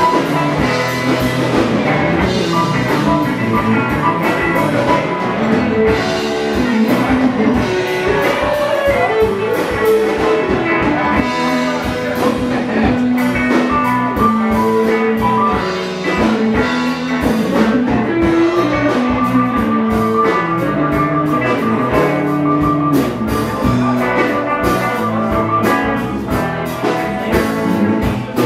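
Live band playing an instrumental passage: electric guitar over drum kit, bass and keyboard. A high note is held for several seconds about two-thirds of the way through.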